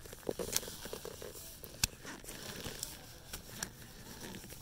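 Faint rustling handling noise with a few short, sharp clicks, the loudest a bit under two seconds in.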